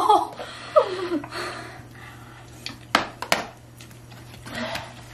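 A pained cry falling in pitch at the start and a short whimper about a second in, from the burn of very spicy noodles. About three seconds in come two sharp clicks of a fork on a plastic noodle container.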